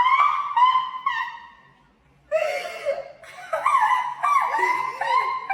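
High-pitched laughing and giggling in short repeated bursts, broken by a brief pause about two seconds in before a second run of laughter.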